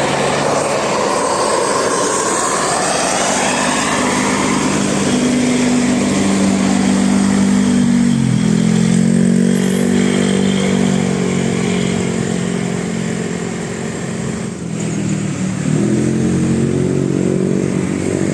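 Bus engine pulling away and accelerating, with traffic noise at the start; the engine pitch drops and climbs again at gear changes about eight and fifteen seconds in.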